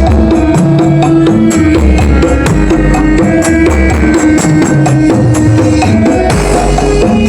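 Very loud music with heavy bass and drums played through a 'sound horeg' rig, the giant stacked loudspeaker system used in Javanese carnival parades.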